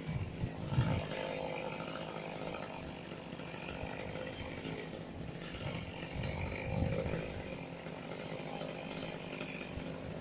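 A chainsaw running, its pitch wavering as it works, with wind gusting on the microphone now and then.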